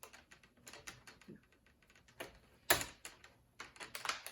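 Plastic screen bezel of a Dell Latitude 3400 laptop clicking and snapping as a pry tool runs along it and pops its latches free: a string of irregular sharp clicks, with a louder snap near the middle and a quick cluster near the end.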